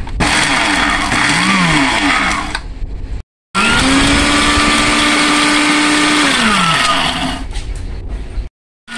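Electric blender grinding sun-dried mulberry leaves in two runs: a short burst, then a longer run whose motor pitch rises as it spins up and falls as it winds down after a few seconds. Both runs cut off abruptly into short silent gaps.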